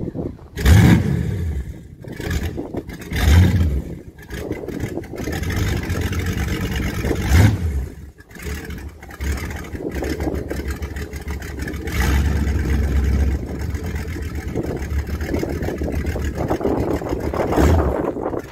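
The boat's 5.7-litre inboard V8 engine running, its throttle blipped briefly about a second in, again at three and a half and seven and a half seconds, and once more near the end, idling in between.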